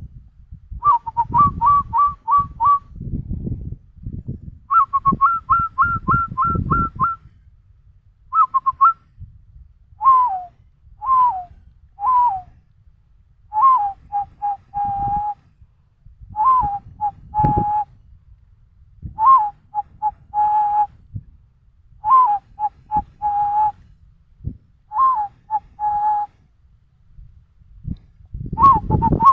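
A person whistling an imitation of a zebra dove's cooing call. It starts with quick runs of short notes, then settles into phrases repeated about every three seconds, each a falling note followed by several short, lower notes.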